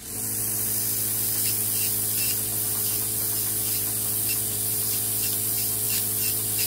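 Podiatry nail drill with a built-in water-and-alcohol spray switching on and running steadily as its burr files down a thick toenail: a loud spray hiss over the motor's steady hum.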